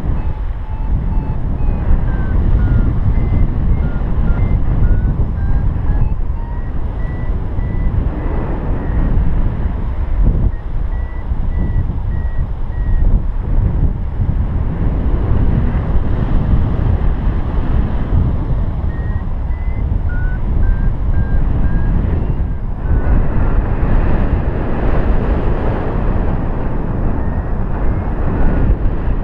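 Wind rushing over the microphone in paraglider flight, with a paragliding variometer beeping in short tones whose pitch steps up and down, signalling the climb rate in lift. The beeping drops out for a few seconds now and then.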